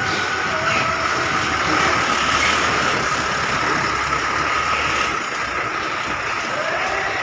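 Buses' diesel engines running at close range, a steady mechanical noise with a high steady tone throughout and a lower tone joining about half a second in.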